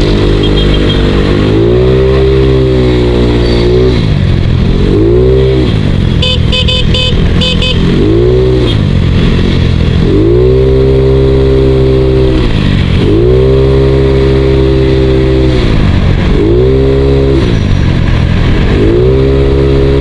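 Yamaha Mio Sporty scooter's small single-cylinder four-stroke engine under way, its note rising and easing back again and again as the throttle is opened and closed in traffic. A horn beeps in a quick chopped series about six seconds in.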